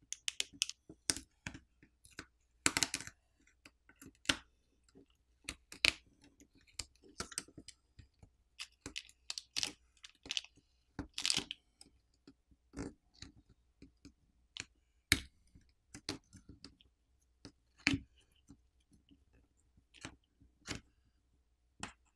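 Irregular small clicks, crackles and short peeling rasps from hands working inside an opened smartphone: flex cables and adhesive film are peeled back, and a roll of tape is pressed and rolled against the phone's frame.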